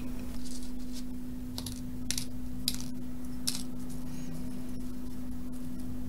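Small clear plastic LEDs with wire legs clicking against each other as they are picked up and counted out by hand: about half a dozen light, irregular clicks, over a steady low hum.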